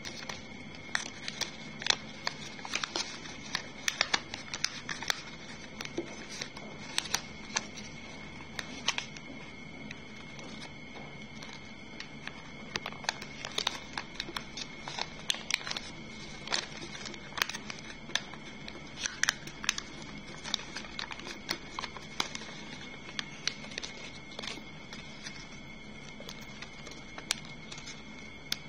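Origami paper being folded and creased by hand on a wooden table: irregular small crackles, rustles and taps of the paper under the fingers. A thin steady high tone and faint hiss sit underneath.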